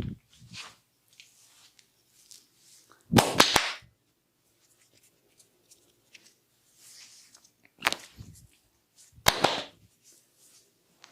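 Hands striking a head during a head massage: a quick cluster of sharp slaps about three seconds in, then two more single slaps near the end, with faint rubbing of hands on hair and skin between.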